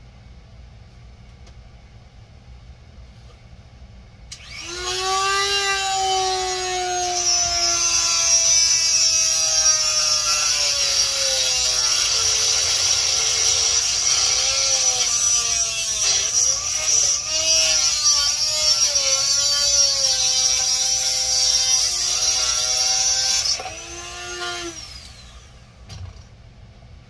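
Small electric power tool cutting into a coral colony's skeleton: it starts about four seconds in, its pitch sags and wavers as it bites, and after about twenty seconds it is switched off and winds down with a falling whine.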